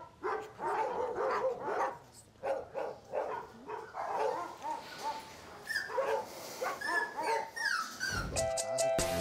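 Puppies yipping and whining, many short calls one after another, a few sliding in pitch. Music comes in near the end.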